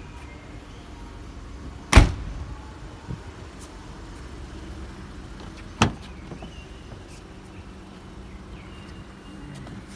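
Boot lid of a 2012 Volkswagen Polo hatchback slammed shut about two seconds in, one loud thud. A few seconds later comes a sharper, lighter clack from the car's driver's door being opened.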